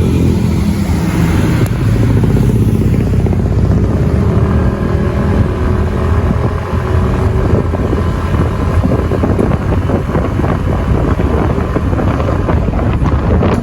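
Motorcycle engine running under way, with wind rushing over the microphone.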